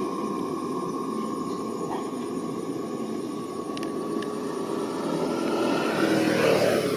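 Steady engine drone with a held tone, growing louder toward the end as it comes closer.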